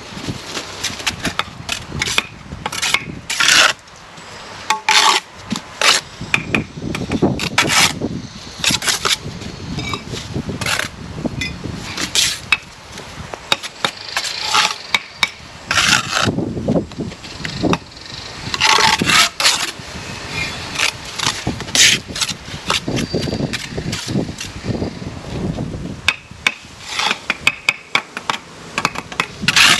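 Brick trowels scraping mortar and tapping bricks down as bricks are laid in mortar: an uneven run of short scrapes and sharp taps.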